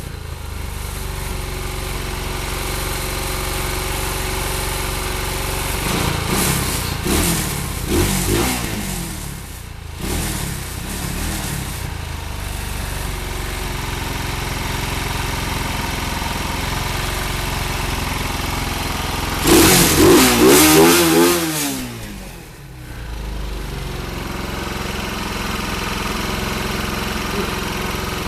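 Quad bike engine running steadily, blipped a few times about six to nine seconds in, then revved loudly around twenty seconds in and falling back to a steady idle.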